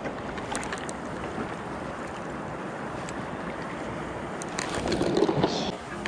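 Mountain stream water rushing steadily, with a few faint clicks about half a second in and a louder rush with sharp clicks for the last second and a half.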